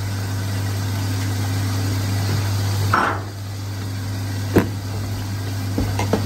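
Steady low kitchen hum with a faint hiss over it, broken by one sharp knock about four and a half seconds in and a few lighter clicks near the end: utensil knocks against a cooking pot.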